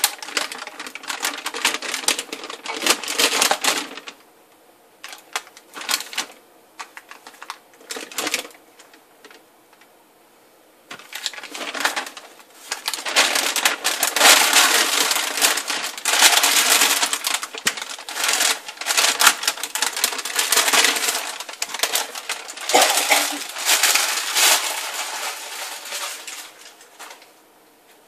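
Crackling, clicking and rustling as a mold is worked off a freshly poured loaf of cold-process soap. The noise comes in irregular spells: a short one at the start, brief ones a little later, then a long stretch through most of the second half.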